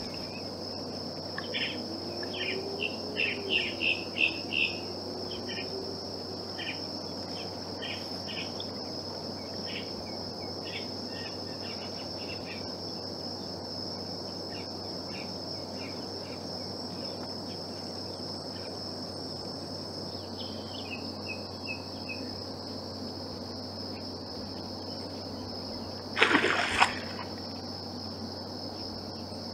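Steady high-pitched insect chorus, with scattered short bird chirps in the first part. Near the end, a brief loud rush of noise breaks in twice in quick succession.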